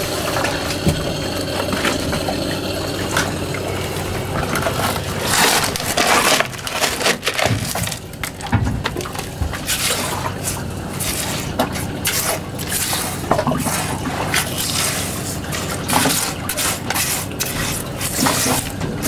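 Wet gravel and pebbles scraped and stirred by hand in a metal sluice box, a run of short crunching, squelching strokes that starts about five seconds in. A steady motor hum runs underneath.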